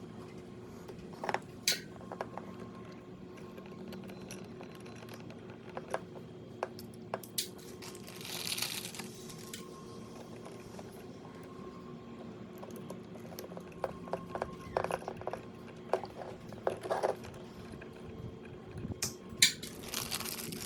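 Hands working with wall-switch wiring: scattered small clicks and taps of wires and the switch body being handled, a short rustle about eight and a half seconds in, and clusters of knocks near the middle and end, over a steady faint hum.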